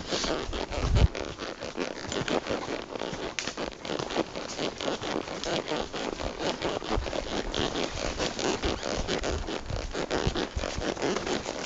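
Close scraping and rustling, with many short, irregular clicks and a heavy thump about a second in.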